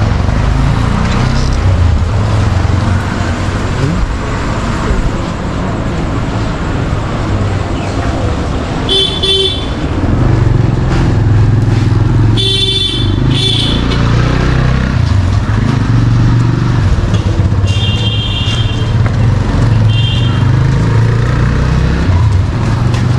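Busy street traffic: motor vehicle engines, including motorcycles, running close by without pause, with horns honking four times, the longest blast about halfway through.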